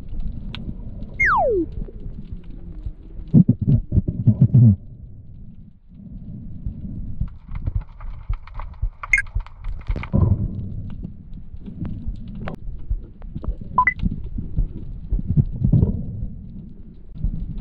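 Muffled underwater sound heard through a submerged camera: low rumbling water noise with irregular gurgles and knocks, a quick run of them about three to five seconds in, and a brief falling whistle about a second in.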